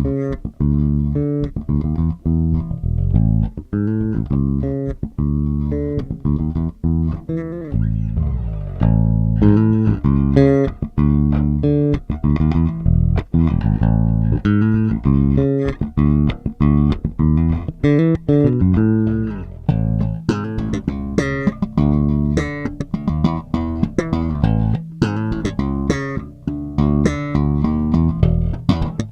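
Five-string electric bass fitted with Nordstrand Big Single single-coil pickups, played solo in a busy run of plucked notes with sharp, percussive attacks.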